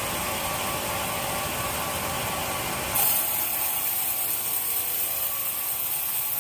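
Sawmill saw running and cutting wood, a steady mechanical noise. About halfway through it changes suddenly to a louder, hissier cutting sound.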